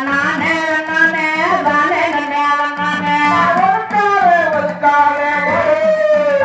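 Tamil mulaipari folk song: a voice singing long, gliding notes over a drum beat.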